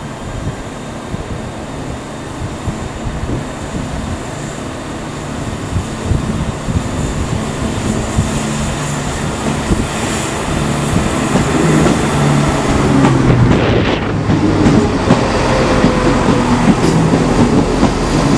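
A CrossCountry Class 170 Turbostar diesel multiple unit pulls into the platform, its diesel engine growing steadily louder as it nears, with the wheels clicking on the rails. A faint squeal comes in about three-quarters of the way through.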